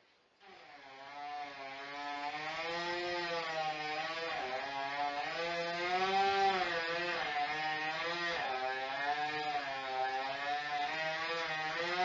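Two-stroke chainsaw engine running, coming in suddenly about half a second in, its pitch rising and falling repeatedly as it is revved through a cut.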